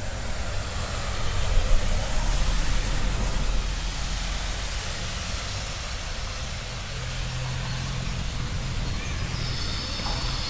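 Steady rain hiss with a low rumble beneath it; a steady low hum joins about seven seconds in.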